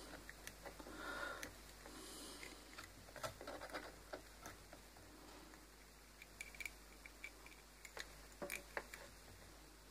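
Faint scattered clicks and small taps as multimeter test leads with alligator clips are handled and clipped onto wire terminals; otherwise near silence.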